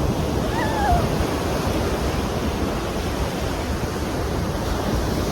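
Ocean surf washing in: a steady rushing noise with a heavy low rumble.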